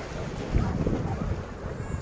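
Wind buffeting the microphone in irregular low gusts, over the wash of sea waves against a rocky shore.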